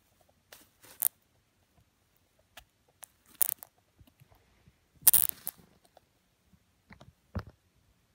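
Shredded paper bedding rustling and crinkling around a Syrian hamster in four or five short bursts, the loudest about five seconds in.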